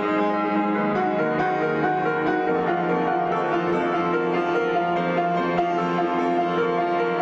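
Instrumental background music with held notes that change about once a second.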